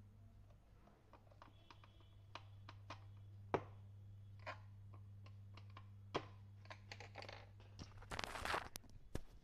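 Scattered small clicks and knocks of a plastic-bodied electric clothes iron being handled and fitted back together, with a short scraping rustle about eight seconds in. A steady low hum runs underneath.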